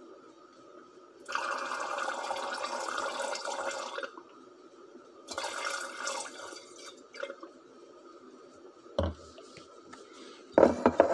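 Water poured into a glass beaker of dark alcoholic extract in two pours, about a second in and again near six seconds, adding water to crash the piperine out of solution. A single knock follows near nine seconds, then a rapid run of glassy clinks begins near the end.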